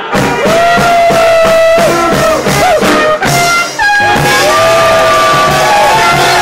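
Live band music: long held, bending melody notes over guitar and a steady drum beat.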